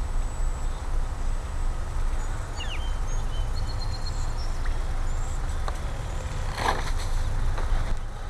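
Outdoor wind rumble buffeting the microphone, with a few short high chirps about a third of the way in and a brief rushing sound near the end.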